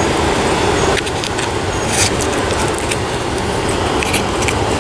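Steady city street traffic noise, with a few light clicks and rattles close by.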